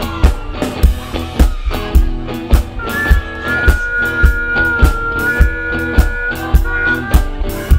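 Live rock band playing electric guitars, drum kit and keyboard, with a steady drumbeat. A long high note is held through the middle.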